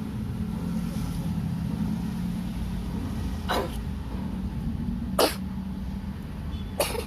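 A cat coughing three times, short sharp hacks about a second and a half apart, the middle one loudest, over a steady low hum.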